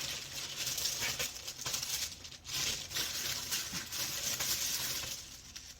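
Crinkly plastic and paper rustling as diamond painting craft materials are handled, in two stretches with a short break about two and a half seconds in.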